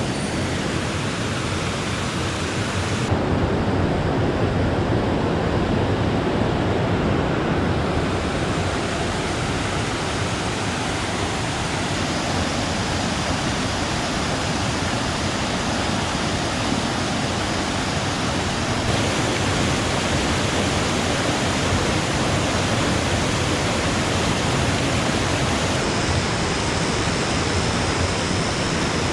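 Mountain stream rushing over rocks: a steady, even wash of running water whose tone shifts abruptly several times.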